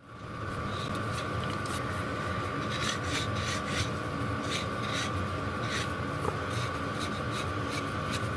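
Cloth rag rubbing and wiping a small metal lathe chuck, with light scratchy strokes and small clicks as the chuck is turned in the hands. A steady hum runs underneath.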